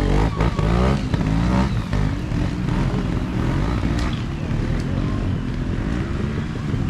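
Trials motorcycle engine revving up and down in short throttle blips as the bike is ridden through a section.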